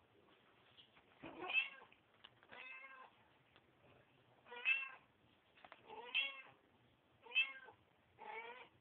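Cat meowing, six short separate meows about a second apart.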